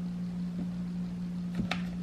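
A steady low hum with a faint knock about half a second in and a sharper click near the end.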